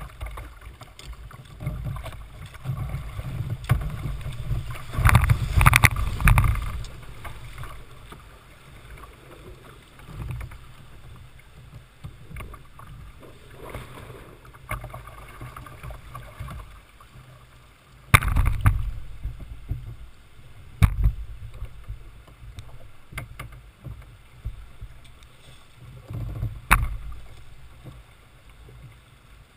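Water rushing and splashing along a Jackson Coosa kayak's hull as it runs moving water, with a few louder splashes and a low rumble of wind on the microphone.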